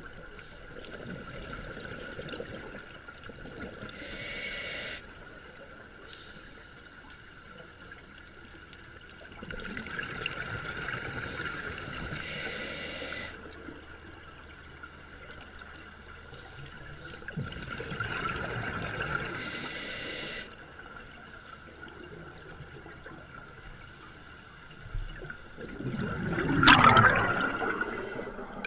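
Scuba diver breathing through a regulator underwater: three slow breaths about eight seconds apart, each a few seconds of exhaled bubbles ending in a short hiss from the regulator. A louder, sharper rush of bubbles comes near the end.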